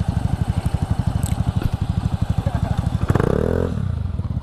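Yamaha RX-King two-stroke single-cylinder engine running with an even, fast putter, then blipped once about three seconds in, its pitch rising quickly and falling straight back before the putter resumes.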